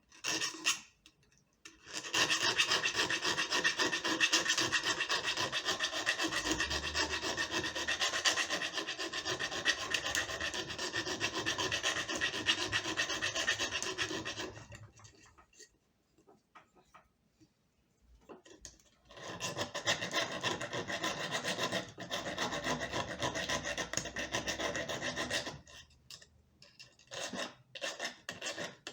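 Metal being filed: the feed-dog opening in a homemade sewing-machine needle plate is being enlarged so the feed dog can move freely. A long continuous stretch of rasping stops about 14 seconds in and resumes about 19 seconds in for some six seconds, with a few short strokes near the end.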